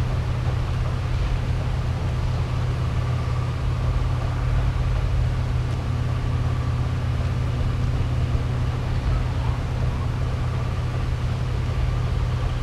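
Steady low rumble with a faint high hum above it.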